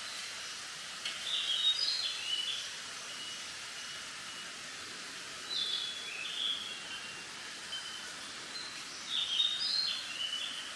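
A songbird singing three short phrases of quick, high notes, about four seconds apart. Under it runs a steady hiss of wind rustling through bamboo leaves.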